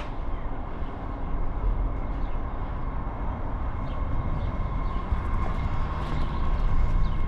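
MBTA Red Line subway train approaching the station: a steady rumble with a faint high whine, growing louder toward the end.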